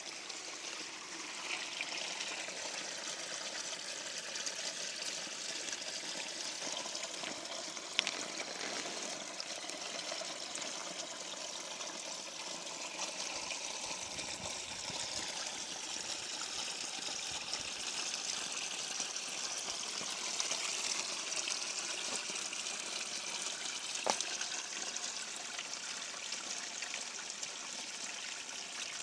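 Shallow stony creek running over rocks: a steady trickling wash of water. A brief click stands out twice.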